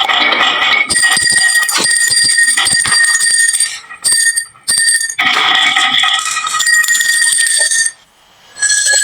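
Marbles clicking and rattling down a wooden marble run, over high, steady, bell-like ringing tones. The ringing cuts off abruptly twice, about four seconds in and again near the end.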